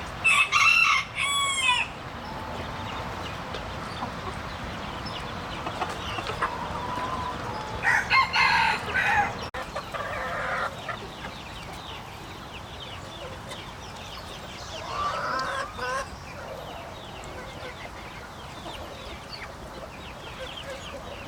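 Roosters crowing loudly several times over the steady clucking and chattering of a flock of chickens.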